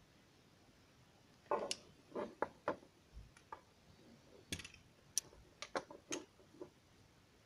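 Plastic clicks and knocks from a bicycle phone clip mount being handled and its clamp worked: about a dozen irregular sharp clicks, starting about a second and a half in.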